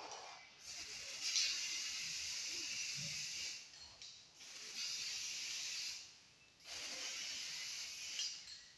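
Aerosol spray-paint can spraying paint onto a bicycle frame in three long bursts of hiss, each lasting two to three seconds, with short pauses between them.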